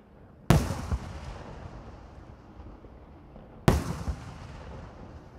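Two aerial firework shells bursting about three seconds apart, each a sharp bang followed by a rolling echo that dies away.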